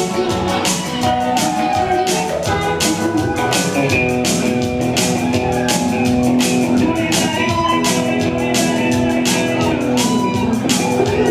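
Live band music over a PA: a drum kit keeping a steady beat under electric guitar and keyboard, with a man singing into a microphone.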